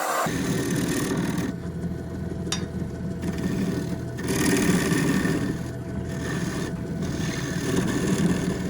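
Wood lathe running with a steady motor hum while a turning gouge cuts into a wet, green log, the scraping cut swelling and fading in several passes.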